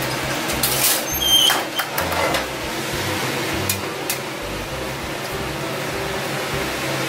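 Steady hum of commercial kitchen ventilation, with a cluster of metal clunks and clatters in the first two seconds or so as an oven door under a gas range is opened and closed, and two light knocks about four seconds in as cookware is handled on a steel counter.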